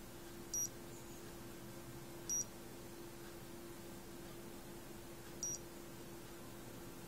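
Digital fever thermometer's buzzer giving three short, high-pitched beeps, a couple of seconds apart.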